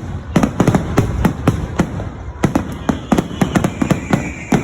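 Fireworks going off in quick, irregular volleys of sharp bangs, several a second in places.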